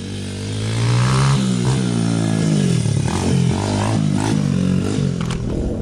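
Honda XR100 dirt bike's single-cylinder four-stroke engine revving. Its pitch climbs about a second in, then rises and falls several times as the throttle is worked.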